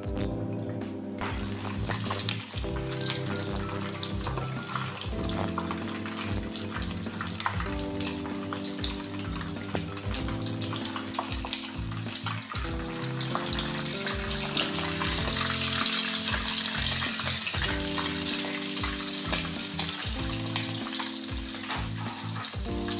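Filo-pastry rolls frying in hot sunflower oil in a pan: a steady crackling sizzle that starts about a second in and is loudest around the middle, with background music underneath.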